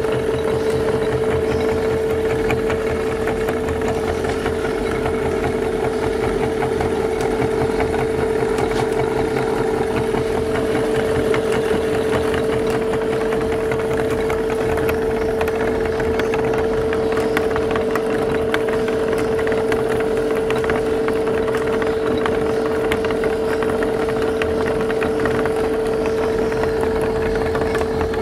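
Motor-driven meat grinder running steadily, its belt turning the flywheel pulley and auger: a constant hum with a fine rattle.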